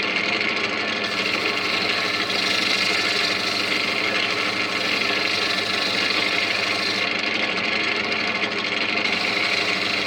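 Wood lathe running steadily, its motor humming under a steady hiss from the spinning wooden pot being worked.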